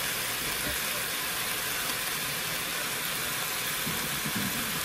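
Chicken drumsticks sizzling in a stovetop pot: a steady, even hiss.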